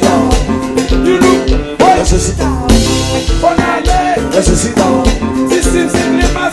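Haitian kompa song with singing, bass and guitar, played along on a live drum kit with regular cymbal and drum hits.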